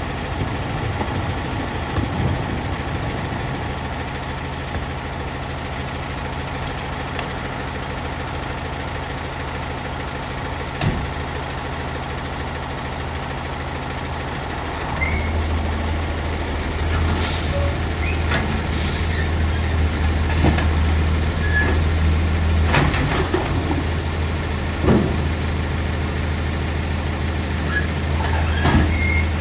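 Autocar ACX garbage truck's diesel engine idling, then speeding up about halfway through as the hydraulics are engaged for the Heil automated side-loader arm. Sharp knocks and clanks follow as the arm grips and lifts a cart toward the hopper.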